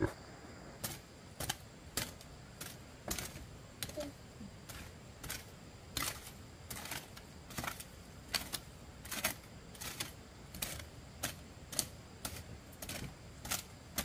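A long run of sharp taps or clicks, about one and a half a second, at a slightly uneven pace.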